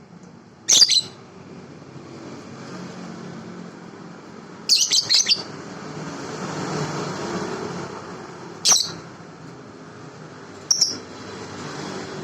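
A pet bird chirping: short, sharp, high calls, four times a few seconds apart, the second a quick run of several chirps, over a faint steady background hum.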